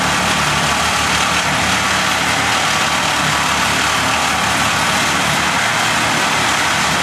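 Heavy engine of tree-removal machinery running steadily, a low engine drone under a loud, even rushing noise that does not change.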